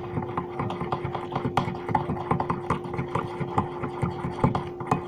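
A spoon stirring and tapping in a bowl of runny homemade icing, giving rapid, irregular clinks, over a steady hum.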